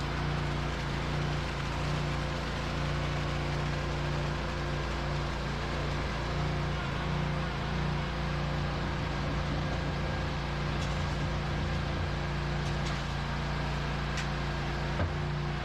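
An engine running steadily at a constant speed, with a single short knock near the end.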